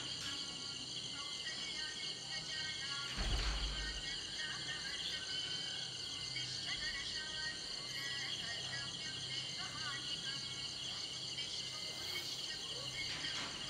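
A dense, steady chorus of crickets and other insects trilling high, with many short bird calls scattered through it. A single low thump comes a little over three seconds in.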